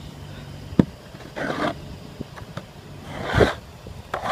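Snow shovel scraping snow off the pavement in two short strokes about two seconds apart, with a sharp knock just under a second in.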